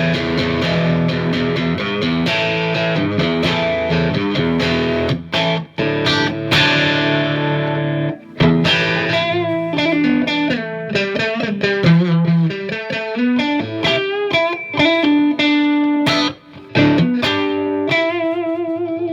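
Electric guitar, a Strat-style partscaster on its bridge and middle pickups together, played through a Marshall JVM210 combo amp's clean channel in its red mode with a little grit. It opens with ringing chords for about five seconds, then turns to picked single notes and arpeggiated phrases with a few brief breaks.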